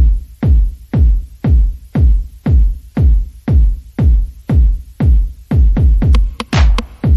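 Electronic background music with a heavy kick drum on every beat, about two beats a second.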